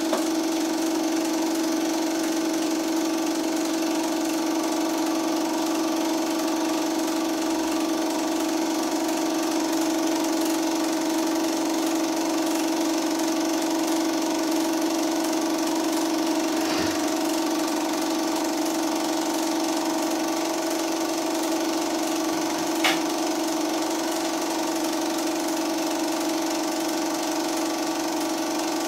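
Film projector running: a steady motor hum with mechanical whirring from the film mechanism, and a single sharp click late on.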